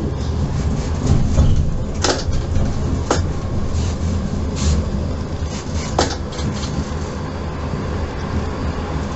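Tram running along street track, heard from the cab: a steady low rumble with a few sharp clicks from wheels on the rails, about two, three and six seconds in.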